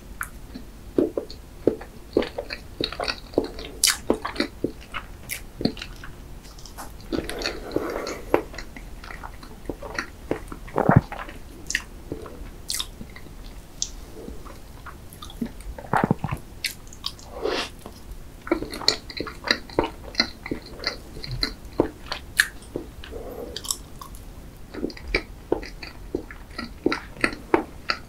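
Close-miked chewing and mouth sounds of someone eating soft chocolate-glazed layer cake from a fork, with many short, irregular sharp clicks.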